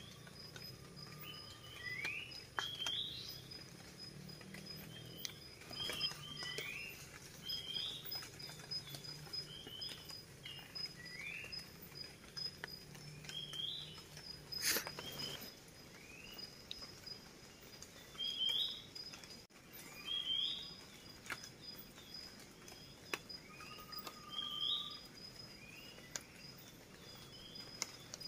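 Forest birds calling over and over with short chirps and rising whistles every second or two, over a faint steady high insect drone, with light scattered ticks of dripping water after rain. A brief rushing noise about halfway through is the loudest moment.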